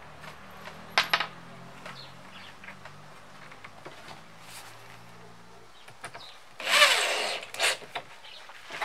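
Workshop tool and handling sounds: a pair of sharp clicks or taps about a second in, a faint low hum, then a short loud noisy burst lasting under a second near the end, followed by another click.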